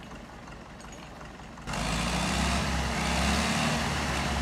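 Heavy truck engine running, quiet at first, then suddenly much louder just under two seconds in, with a steady low drone and a rushing noise over it.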